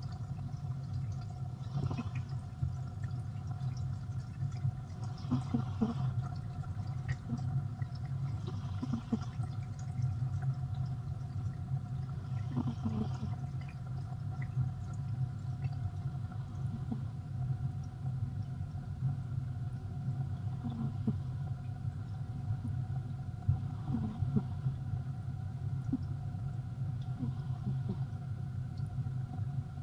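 A sleeping pet snoring, with a soft, rough breath about every three to four seconds over a steady low hum.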